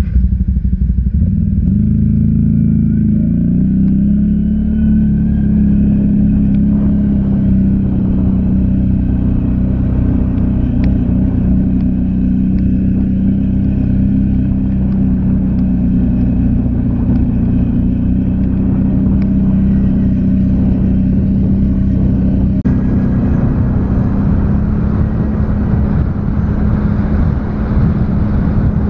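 ATV engine running steadily under way, its pitch rising over the first few seconds and then holding. A rushing hiss grows louder from about two-thirds of the way through.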